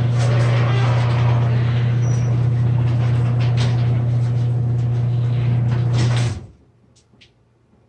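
Two LiftMaster chain-drive garage door openers, a 1/2 hp and a 1/3 hp, running together: a steady motor drone with the rattle of the moving doors. It stops sharply about six seconds in as the doors finish their travel, followed by a couple of faint clicks.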